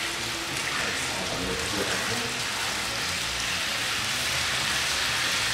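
Chicken pieces frying in hot oil in a pan, a steady sizzle, as they are turned over.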